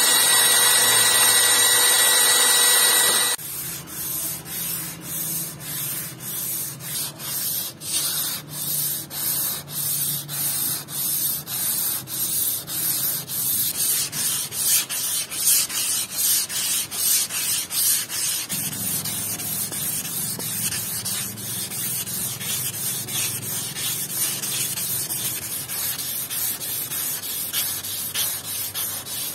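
A power tool runs with a steady whine for about the first three seconds, then cuts off. After that, a strip of abrasive sanding cloth is pulled back and forth around a rusty metal tube held in a vise: a steady rhythm of rasping strokes, under two a second, quickening and evening out past the middle.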